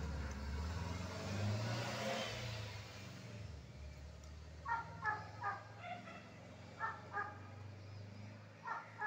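A motor vehicle passing by, louder in the first few seconds and then fading, over a steady low hum. Later, short high-pitched animal calls come in little groups of two or three, three times.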